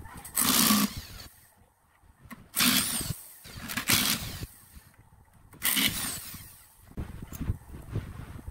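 Power drill backing the screws out of a lathe faceplate fixed to a wooden vase, in four short bursts of the drill motor.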